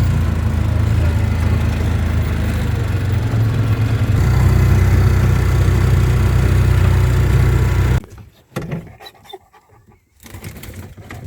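A motor running steadily with a low rumble, changing slightly about four seconds in and cut off abruptly about eight seconds in.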